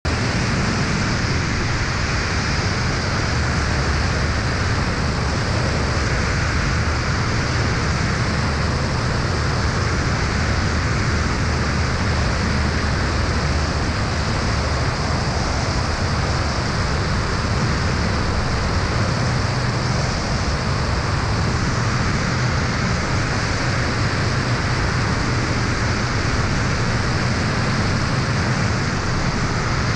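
Aeroprakt A22 light aircraft's engine and propeller running steadily, with a constant rush of air over the airframe. It stays at one even level throughout, with no change in power.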